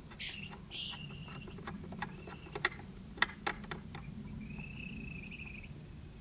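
A string of small sharp clicks and ticks as a large-format field camera is handled and adjusted on its tripod, the two loudest near the middle. Thin high whistling tones come and go, one held for over a second near the end.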